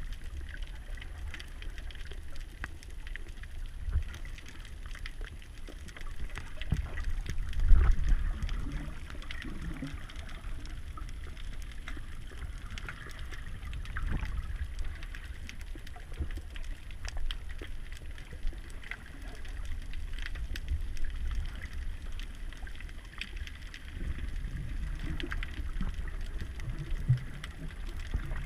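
Underwater ambience heard by a submerged camera: a steady low rumble of moving water with scattered faint clicks and crackles, and a louder bump about eight seconds in.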